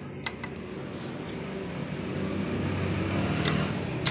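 A steady mechanical hum, with a few light metallic clicks from a long box spanner working the bolts of a motorcycle's magneto cover. The sharpest click comes near the end.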